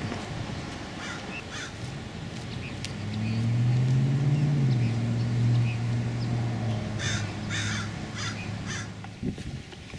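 Crows cawing, a couple of calls early on and then a run of about four calls near the end. Under them a low hum swells in the middle and fades out.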